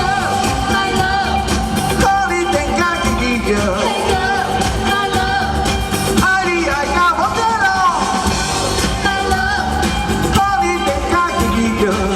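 A live pop-rock band playing a Taiwanese Hokkien song, with a voice singing over the band.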